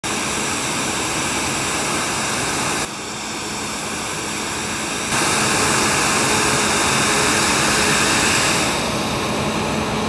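CLAAS Lexion 8800 combine harvester running while harvesting wheat: a steady engine and threshing noise that drops in level about three seconds in and rises again about five seconds in.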